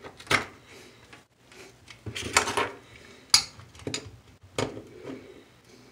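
Metal half-moon flange repair piece clinking and scraping against a toilet flange as it is worked into place, a series of irregular knocks and scrapes.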